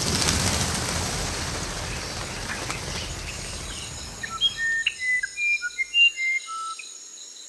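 Logo sound sting: a rush of noise that fades away over the first few seconds, then a small bird chirping and whistling in short notes over a steady high insect trill.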